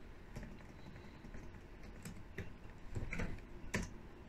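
Computer keyboard keys pressed a few times, faint separate keystrokes spaced irregularly, a few of them close together near the end.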